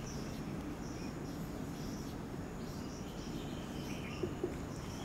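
Dry-erase marker squeaking faintly on a whiteboard in short, irregular high-pitched strokes as a word is written, over a low steady room hiss.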